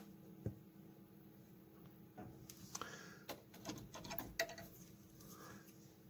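Quiet, scattered clicks and taps of small metal parts being handled and set down on a workbench cutting mat, most of them between about two and four and a half seconds in.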